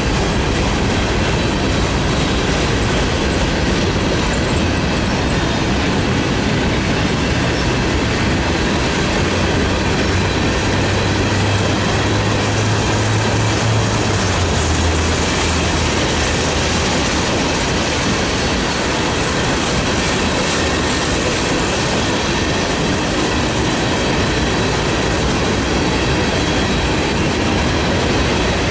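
CSX freight train cars, covered hoppers, tank cars and gondolas, rolling steadily past with their wheels running on the rails. A low hum joins in about a third of the way through, drops in pitch and fades a few seconds later.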